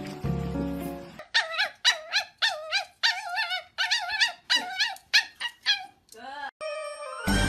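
A puppy crying in short, high, wavering yelps, about two a second, ending with a longer falling whine. Background music plays for about the first second and comes back near the end.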